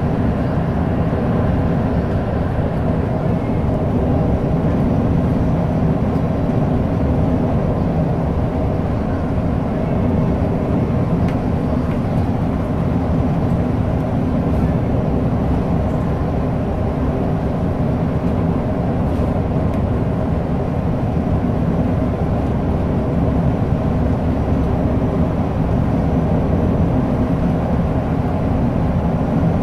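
Volvo 8500 city/regional bus under way, its diesel engine and road noise heard steadily from inside the passenger cabin, deep and even, with no gear changes or sudden events.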